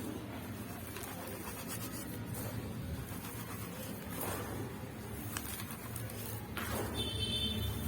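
Dry charcoal powder being pressed and squeezed by hand, crackling and gritty, with a short high squeak near the end. A steady low rumble runs underneath.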